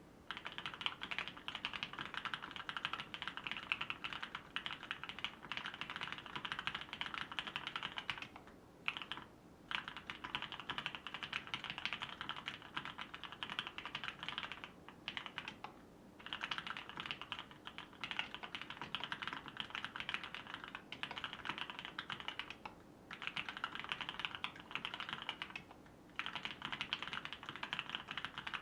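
Continuous fast typing on an OTD 360 Corsa mechanical keyboard with Krytox-lubed vintage Cherry MX Black linear switches on 55 g springs, an aluminium plate and Cherry dye-sublimated keycaps. The keystrokes come in quick runs with a few short pauses.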